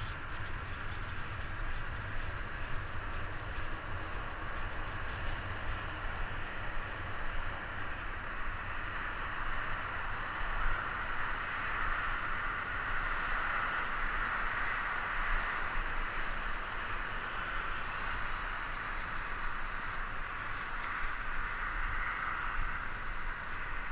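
Wind and rolling noise picked up by a helmet-mounted camera while cycling: a fluctuating low rumble of wind on the microphone under a steady hiss, which grows louder about halfway through.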